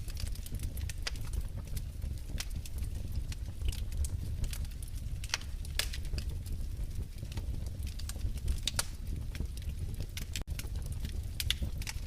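Wood fire in a fireplace crackling: irregular sharp pops and snaps over a steady low rumble of the flames, with a brief dropout in the audio about ten seconds in.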